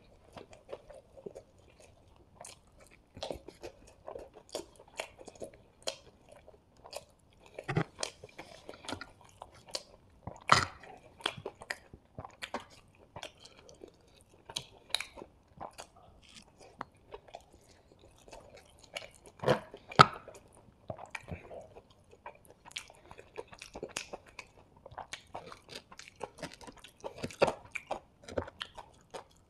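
Close-miked chewing and mouth sounds of a person eating hakka noodles and chilli chicken: irregular wet smacks and clicks, with a few louder sharp clicks.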